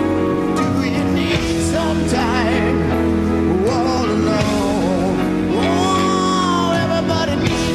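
Background music: a song with a singing voice, held and wavering notes, over sustained instrumental accompaniment.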